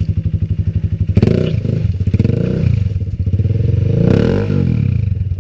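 Enduro motorcycle engine idling with an even pulsing beat, then revved hard about a second in, its pitch rising and falling twice with some clatter, before dropping back to idle near the end.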